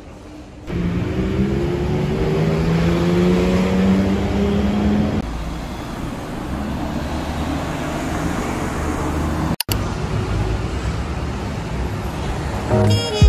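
City street traffic noise, with a motor vehicle's engine running and slowly rising in pitch as it accelerates during the first few seconds, then steady traffic.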